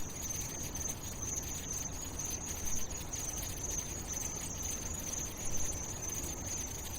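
Crickets chirping in a steady high trill over a faint low background rumble.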